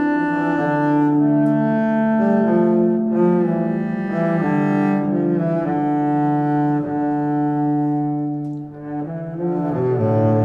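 Background music: a slow melody on bowed strings, long held notes changing every second or two, with a short dip in loudness near the end.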